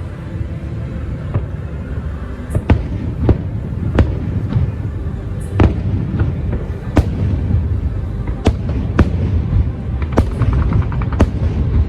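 Fireworks bursting in the sky: a string of sharp bangs about a second apart, with a quick run of crackling near the end. The show's music soundtrack plays underneath.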